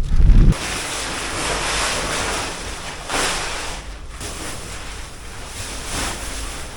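Strong wind: a steady rushing hiss that swells about three seconds in, with heavy low buffeting on the microphone in the first half second.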